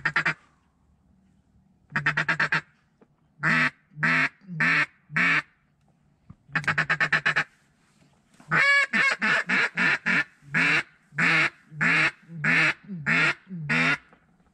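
Duck call blown at close range: short bursts of rapid feed chatter alternating with loud quacks, then a run of about ten evenly spaced quacks in the second half, calling to ducks in flight.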